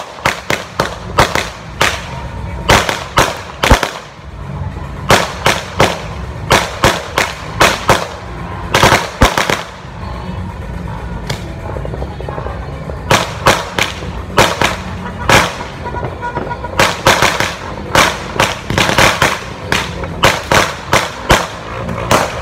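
Firecrackers going off in rapid succession, sharp bangs in irregular clusters of several a second, with a few brief lulls between clusters.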